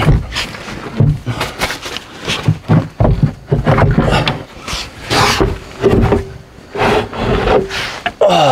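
A heavy wet lead-acid battery being worked out of its battery box: an irregular run of knocks, clunks and scrapes as it slides and bumps against the box.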